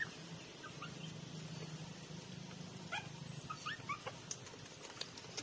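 Very young puppies giving short, high, rising squeaks and whimpers as they jostle under their mother to nurse, a couple near the start and a cluster about three to four and a half seconds in. A steady low hum sits underneath.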